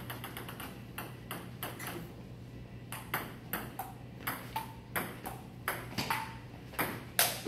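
Table tennis rally: a ping-pong ball clicking off the paddles and bouncing on a Joola table in a quick, irregular series of sharp ticks, a few each second, with the loudest hit near the end.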